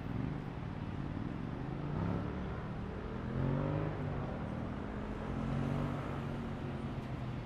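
A road vehicle's engine accelerating, its pitch rising in a couple of climbs about two seconds in and then holding steady, over a continuous hum of city traffic.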